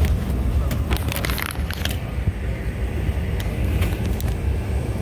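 Steady low rumble in the cabin of a Boeing 717-200 rolling slowly on the ground with its jet engines running. Scraping and clicks from the phone being handled against the window come between about one and two seconds in.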